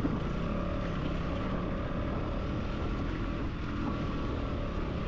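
KTM Duke motorcycle engine running steadily as the bike is ridden along a rough track.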